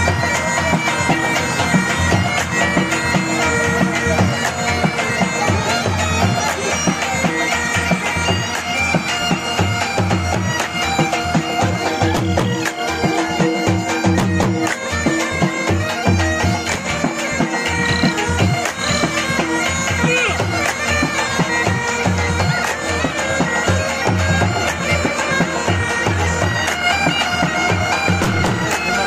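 Background music with held melody lines over a low, steady beat.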